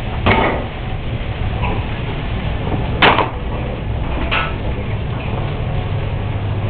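Steady rushing hum of a busy commercial kitchen with gas burners alight, broken by a few short clatters of plates and pans; the loudest comes about three seconds in.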